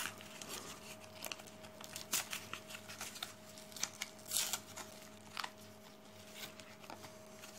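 Blister pack of 2025 coin-cell batteries being torn open by hand: irregular crinkling of the plastic bubble and tearing of the paper backing, over a faint steady hum.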